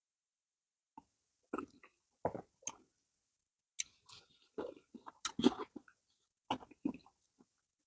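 Close-miked wet chewing and lip-smacking of soft pounded yam and banga soup, in irregular bursts that start about a second in, the loudest a little past the middle.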